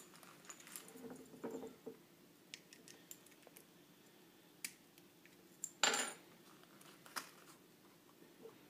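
Handling noise from a laser pointer and its small metal keys and box being picked up and turned over in the hands: scattered light clicks and taps, with a louder scrape or rustle about six seconds in.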